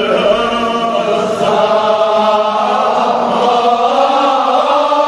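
A man chanting a Kashmiri marsiya, a mourning elegy, in long, drawn-out melodic lines.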